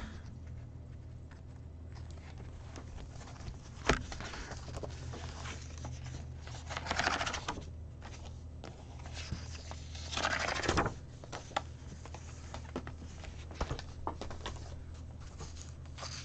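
Paper pages of a disc-bound planner handled and pulled off its plastic discs: a sharp click about four seconds in, two swishing bursts of paper sliding and rustling, and a few light ticks, over a faint steady low hum.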